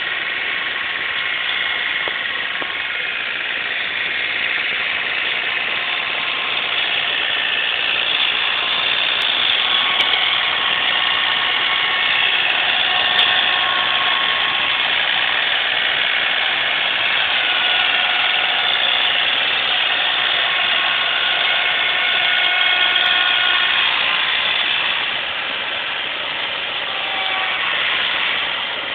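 John Deere tractor running with its inverted snowblower engaged, throwing snow: a steady engine-and-blower drone with faint whining tones that shift slowly in pitch. It eases off slightly about 25 seconds in.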